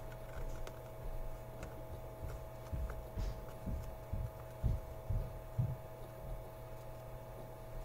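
Steady low electrical hum with a faint steady higher tone, and a run of soft low thumps and knocks about three to six seconds in.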